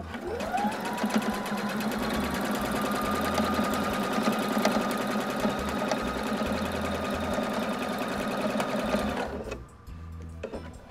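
Husqvarna Viking electric sewing machine stitching a seam: the motor whine rises as it speeds up at the start, then runs at a steady rapid stitch for about nine seconds and stops shortly before the end.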